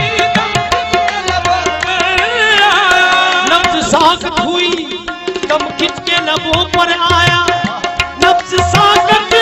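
Music of an Urdu Sufi devotional song (kalam): drum strokes in a steady rhythm under a wavering melodic line.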